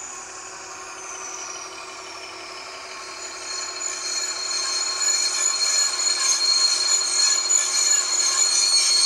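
An ESU sound decoder in an H0 model BR 216 diesel locomotive, played through the model's small speaker. Over the diesel's steady engine sound, a high whine falls in pitch for the first few seconds. From about three seconds in, a loud, high brake squeal builds as the locomotive slows to a stop.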